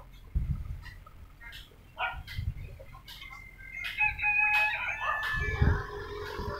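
A rooster crowing: one long, stepped call starting about four seconds in. Low rumbles of wind on the microphone come and go throughout.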